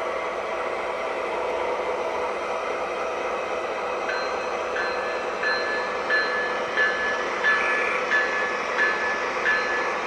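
MTH Rail King O gauge model train's Proto-Sound diesel engine sound over the running of its wheels on three-rail track. About four seconds in, the locomotive's bell starts ringing, about three strokes every two seconds.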